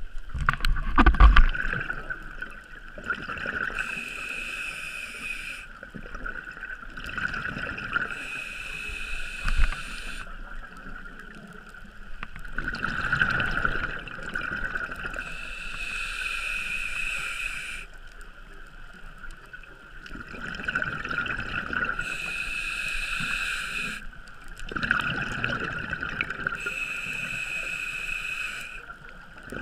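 Scuba regulator breathing heard underwater: a hiss on each inhale alternating with rumbling bursts of exhaled bubbles, a few breaths in all. There is a couple of knocks, the loudest about a second in.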